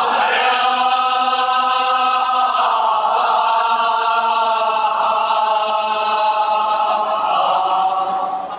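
A group of men chanting a Kashmiri marsiya (mourning elegy) together, drawing out long held notes. The chant trails off near the end.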